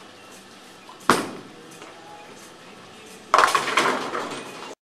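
Lane #1 Ripsaw bowling ball landing on the wooden lane with a sharp thud about a second in, rolling quietly down the lane, then crashing into the pins a little over three seconds in: a loud clatter of pins that cuts off suddenly near the end.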